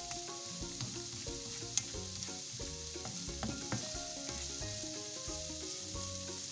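Onion, green chillies and ginger-garlic paste sizzling steadily in oil in a non-stick frying pan while a spatula stirs them, with a couple of sharp ticks from the spatula against the pan. Soft background music with a melody plays underneath.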